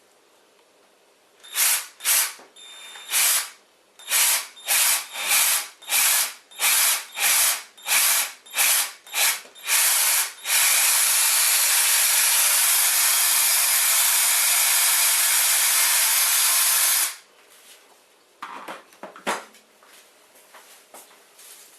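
Handheld power drill enlarging a hole, run in about a dozen short bursts and then held on steadily for about six seconds before stopping.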